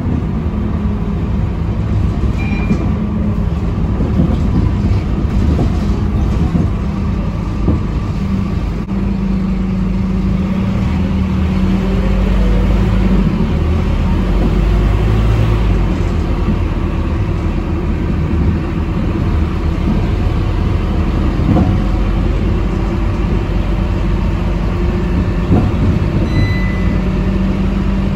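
Cabin sound of a Scania K230UB city bus on the move: its nine-litre five-cylinder diesel engine and road rumble running steadily. The engine hum swells for a few seconds near the middle and again near the end.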